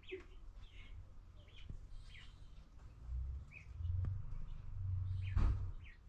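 Young chickens in a brooder cheeping in short, scattered calls. A low rumble swells in about halfway through and is the loudest sound until near the end.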